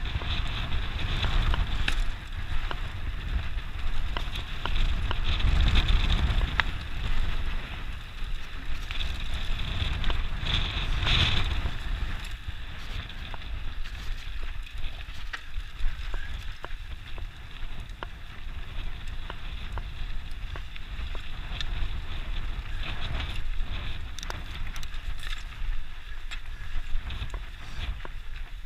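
Mountain bike riding over a dirt trail: wind rumbling on the microphone over tyre noise, with scattered clicks and knocks from the bike over bumps.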